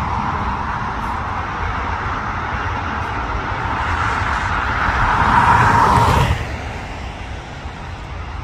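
Jet aircraft engines roaring, the sound swelling to a peak about five to six seconds in, then dropping off sharply.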